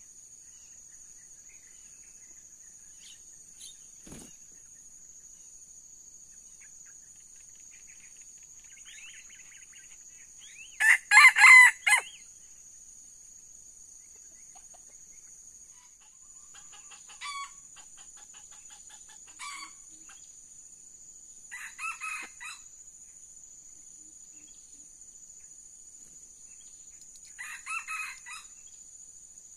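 Red junglefowl cocks crowing: one loud, short crow about eleven seconds in, then four fainter crows spaced a few seconds apart. A steady high insect drone runs underneath.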